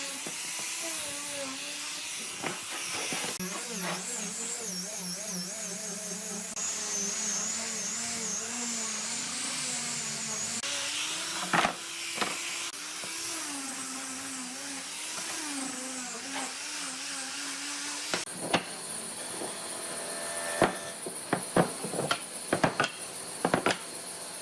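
Electric power tool's motor whining, its pitch wavering as it works the wood, broken by several abrupt cuts. In the last few seconds come a run of sharp knocks.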